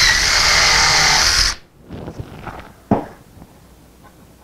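DeWalt cordless drill running at full speed, boring a countersunk pilot hole through plywood, then cutting off about a second and a half in. A few light knocks follow.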